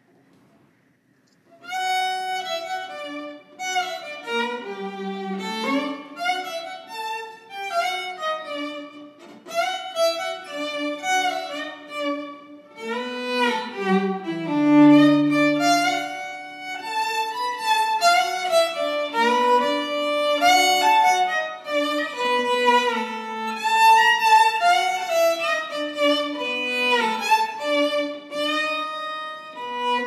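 Solo violin playing a melody of quickly changing notes with a few held ones, starting about a second and a half in.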